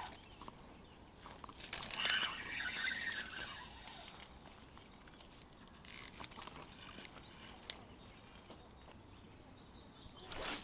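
Quiet lakeside ambience with a bird singing briefly about two seconds in, a short hiss near the middle and a single sharp click later on.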